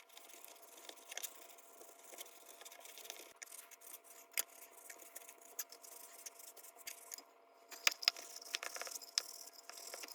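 Faint scratching and small metal clicks and clinks, irregular and scattered, as small metal lantern parts are handled and rubbed.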